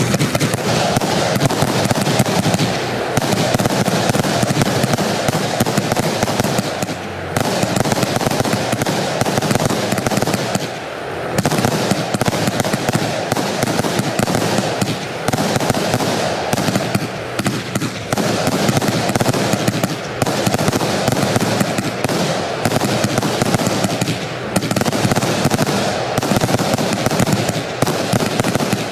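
Vivid Pyrotechnics Velocity, a one-minute retail firework, firing shots in rapid, near-continuous succession, with a few brief lulls between volleys.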